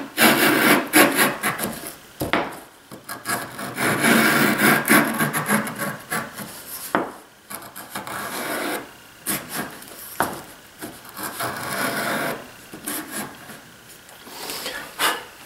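Hand router plane cutting a stop dado in plywood: a series of short, irregular scraping strokes as the blade takes deep bites against the grain and tears out shavings.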